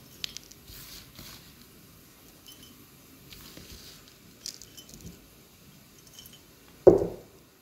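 Dried ginger mixture being handled and put into a bottle: light scattered clicks and rattles, then one loud dull thump near the end.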